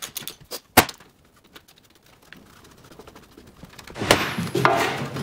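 A ratchet wrench clicking and metal knocking as bolts are undone on a Jaguar E-Type rear suspension subframe, then a louder metallic scraping clatter about four seconds in.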